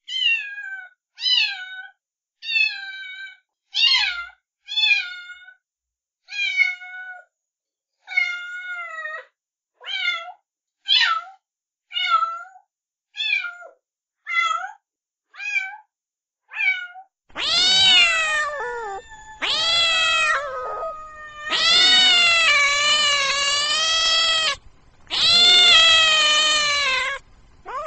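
Kitten meowing over and over: short meows falling in pitch, about one a second, then from about two-thirds of the way through, louder, longer drawn-out meows, the last two held for about two seconds each.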